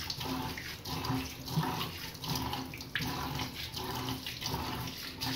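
Kitchen tap running in a thin stream into a stainless steel sink while hands scrub the soapy basin, a soft rubbing that repeats a few times a second under the splashing water.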